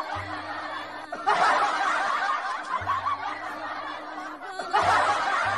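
Laughter, in swells that rise about a second in and again near the end and fade between them, over quiet background music.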